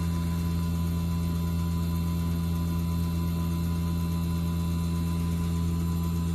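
Carrier Infinity variable-speed heat pump outdoor unit running steadily in heating: an even hum from the inverter-driven compressor turning at about 5,000 rpm, with the outdoor fan.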